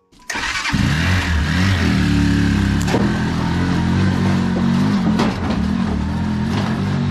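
A vehicle engine running steadily under way, loud and close, with a wash of road or wind noise; it starts abruptly just after the start.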